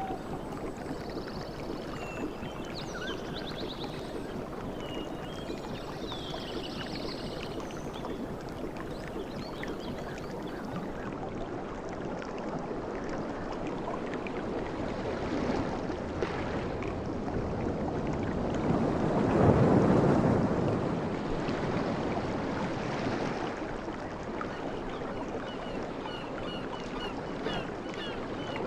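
Sea waves washing onto a beach: a steady surf noise, with one wave swelling and breaking loudest about two-thirds of the way through before easing off. Faint high chirps sound near the start and again near the end.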